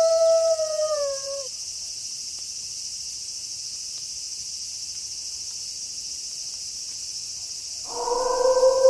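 A wolf's long howl drops in pitch and fades out about a second and a half in, over a steady chorus of crickets. Near the end another, lower howl begins and holds steady.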